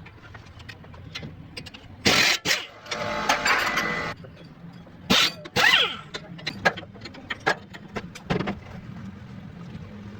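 Car repair work: a series of sharp metallic knocks and clanks, with a noisy stretch of about a second a few seconds in, over a steady low hum.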